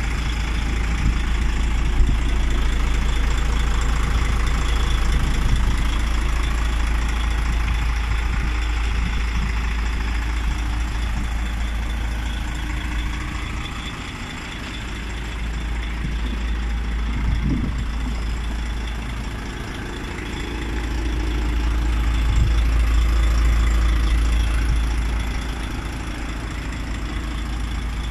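DAF XF 105.410 tractor unit's 12.9-litre PACCAR MX straight-six diesel idling steadily, with a low rumble that swells and eases.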